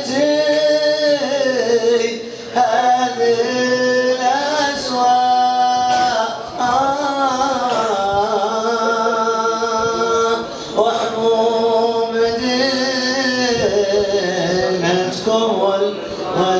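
A man singing an unaccompanied Arabic devotional nasheed, drawing out long ornamented notes with short breaths between phrases.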